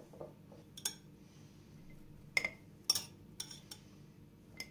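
A kitchen utensil clinking against a glass jar as chopped onion is scraped into it. There are about half a dozen sharp, irregularly spaced clinks.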